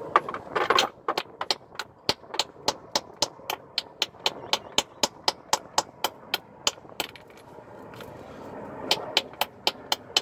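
Hammer blows on the stuck upper control arm bolt of a Chevy Tahoe, metal on metal, to drive it out: a steady run of sharp strikes, about three or four a second. The strikes pause for a couple of seconds about two-thirds of the way through, then start again.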